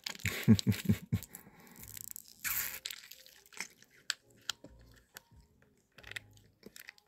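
Drinking from a plastic spouted drink pouch: sucking and a quick run of gulps in the first second, a short slurp or breathy burst a couple of seconds in, then small clicks and crinkles of the plastic pouch being handled.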